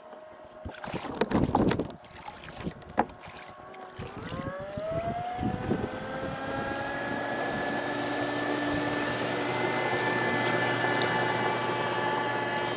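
A motorboat engine starting to be heard about four seconds in, rising in pitch as it speeds up, then running at a steady high pitch. Before it, a kayak paddle splashes and knocks in the water.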